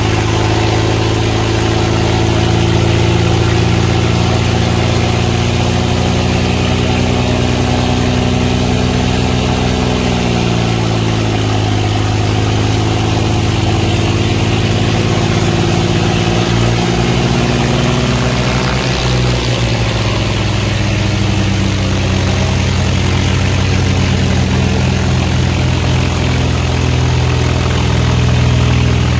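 Diesel tractor engine running steadily, its pitch sagging about ten seconds in and shifting again around the twenty-second mark.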